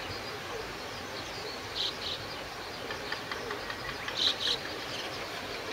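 Grey-headed lapwing calling in two quick double notes, once about two seconds in and again, louder, near four seconds. Under them is a steady hiss of rain with faint scattered chirps.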